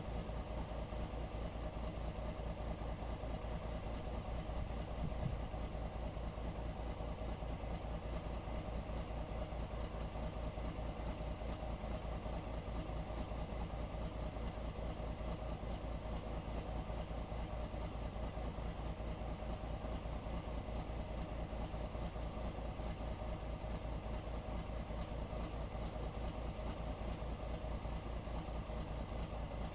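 Nissan Diesel/UD truck diesel engine idling steadily with an even low throb.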